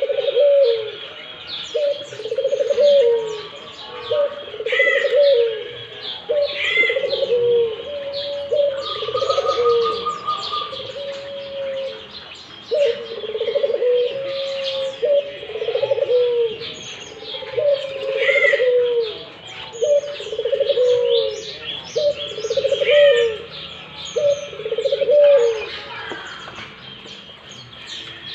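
Puter dove cooing over and over in a steady run of low coos, roughly one phrase a second, the vigorous non-stop calling that bird keepers prize. Higher chirps of other small birds sound through it.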